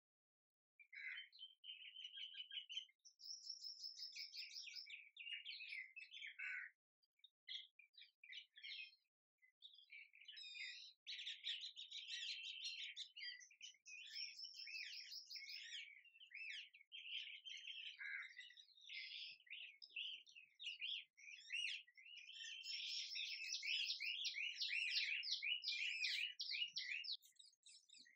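Small birds chirping and trilling, with several rapid twittering calls overlapping almost without a break. The calls start about a second in and thin out briefly a few seconds later. They are fullest near the end.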